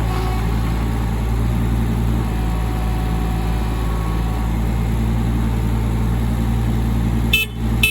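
Diesel engine of a Case CX18B mini excavator running steadily, with two short high beeps about half a second apart near the end.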